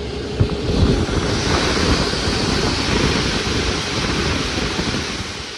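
ALn 663 diesel railcar running at speed, heard from inside: a steady low rumble with rushing wind, and a hiss that swells about a second and a half in and eases off near the end.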